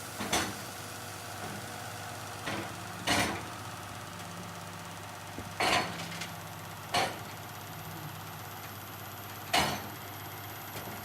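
Heavy engine idling steadily, with about six sharp knocks or clanks at uneven intervals over it.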